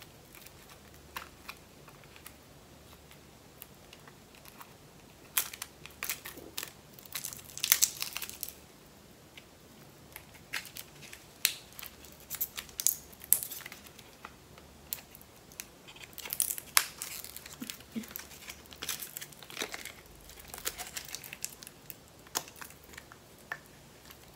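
A lipstick's sealed wrapping crinkling and tearing as it is picked open by hand, in irregular crackles that come thickest several seconds in and again a little past the middle.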